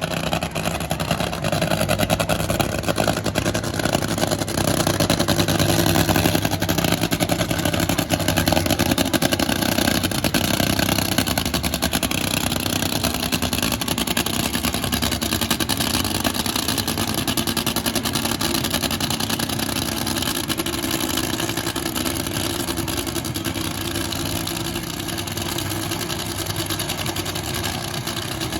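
Race car engine running at a drag strip, a steady loud drone; its low hum is strongest for the first ten seconds or so, then eases.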